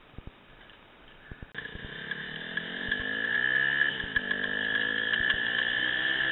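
Yamaha WR250F dirt bike engine accelerating along a trail, its pitch climbing as it revs up, dropping briefly about four seconds in and then climbing again. Before it cuts in suddenly about a second and a half in, there is only a quiet stretch with a few knocks.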